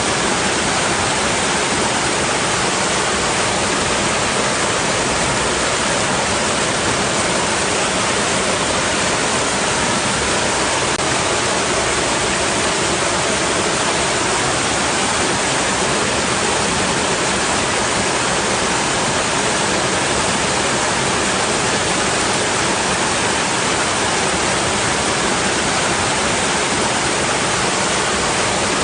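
Water rushing against rocks, a steady, unbroken rush with no surges or pauses.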